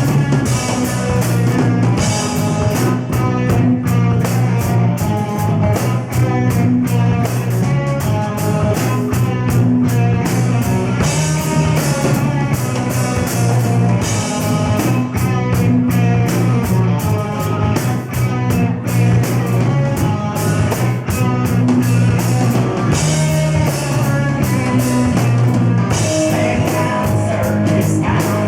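Rock band playing live, with electric guitar and a drum kit keeping a steady driving beat.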